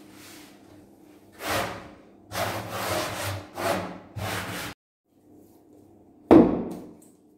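A hand sweeping and rubbing flour across the bottom of wooden dough trays: a run of five dry scraping swishes that cuts off suddenly. About six seconds in comes a single loud thud against the wooden tray.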